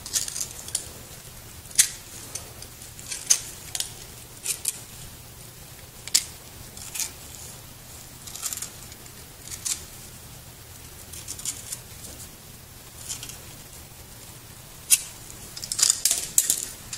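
Thin zinc casing of a carbon-zinc battery cell being torn and peeled off with a plier-like hand tool: irregular sharp crinkles and metal snips, with a quick cluster of them near the end.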